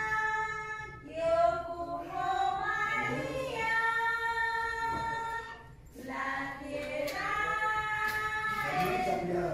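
High voices singing slowly, holding long notes that slide from one pitch to the next.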